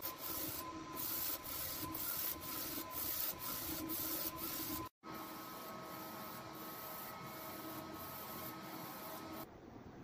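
UV flatbed printer running a print job: its carriage and motors run with a steady several-pitched whine and a regular swishing pulse about twice a second. It cuts out for an instant about halfway and drops to a quieter hum near the end.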